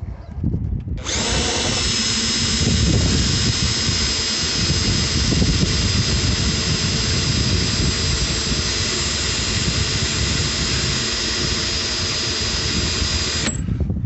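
Makita electric drill running steadily with its bit against the sheet-metal B-pillar of a 1955 Chevy pickup, with a steady high whine. It starts about a second in and stops shortly before the end. The bit is not cutting, which the owner puts down to a worthless bit.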